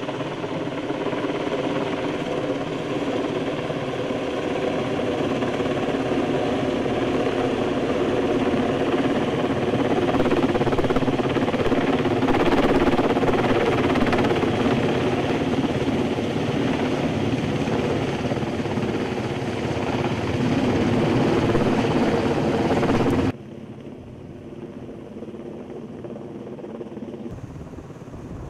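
UH-60 Black Hawk helicopter overhead carrying a sling load, its rotor and twin turbine engines giving a loud, steady running sound with several pitched tones. About 23 seconds in, the sound drops abruptly to a much lower level.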